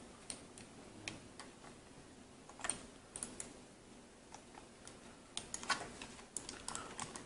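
Faint, scattered clicks and taps of fingers handling a plastic UtechSmart gaming mouse while pressing its adhesive glide pad back onto the underside, with a quick run of clicks near the end.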